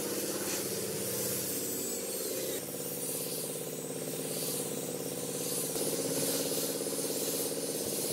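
Handheld angle grinder with a sanding disc running steadily as it sands the face of a wooden board, a motor whine with a gritty hiss over it.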